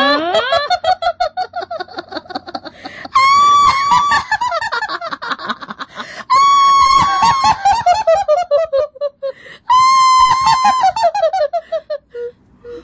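Ghost cackling-laugh sound effect in a very high, shrill voice. Three times it holds a shriek, then breaks into a fast run of ha-ha pulses that drop steadily in pitch, at about three, six and ten seconds in. It opens on the tail of an upward-gliding shriek that turns into the same falling cackle.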